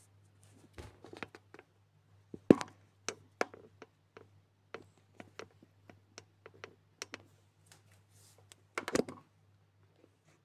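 Irregular light taps and clicks of hands working a ball of plasticine against a desk, with a sharp knock about two and a half seconds in and a cluster of louder knocks near the end. A low steady hum runs underneath.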